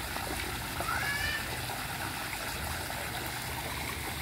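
Steady rush of water from the RAS filter's return outlet pouring into a tilapia pond, with light splashing from fish feeding at the surface.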